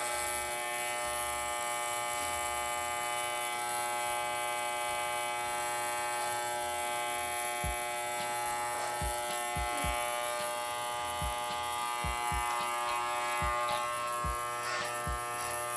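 Electric pet grooming clippers running with a steady buzz, with a few soft low bumps in the second half as they are moved over the dog.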